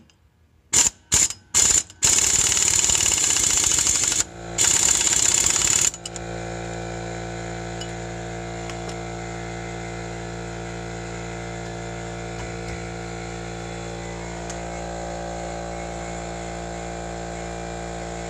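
A power tool spins an acorn lug nut down on a wheel-stud installer, pulling a new rear wheel stud into the hub flange: three short blips, then two longer runs of about two seconds and a second and a half. After that a steady mechanical hum with several tones carries on.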